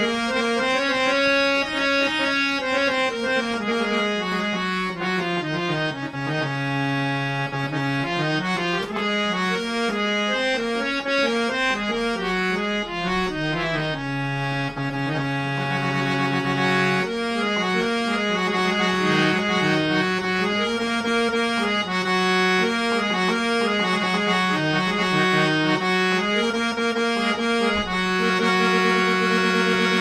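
Hand-pumped harmonium, a free-reed keyboard instrument, played solo: a continuous melody of sustained notes stepping up and down in pitch, held steady by the bellows.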